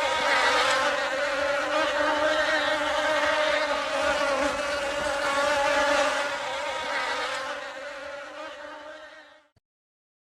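A flying insect buzzing with a steady hum that fades and stops about nine and a half seconds in.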